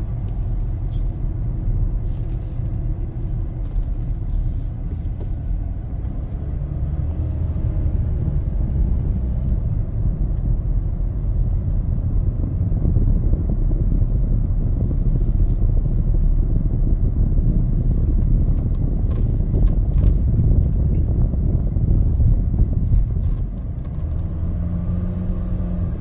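Car driving, with a steady low road and engine rumble heard from inside the cabin. It grows louder through the middle stretch and eases near the end.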